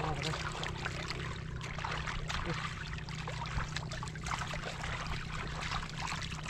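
Shallow muddy water splashing and sloshing in many short, irregular splashes as stranded fish thrash in the mud and a person wades and grabs them by hand, over a steady low rumble.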